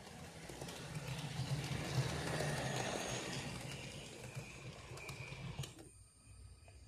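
Model train running along its track, its motor humming and wheels rumbling on the rails, growing louder as it comes close and then fading, and dropping off sharply near the end.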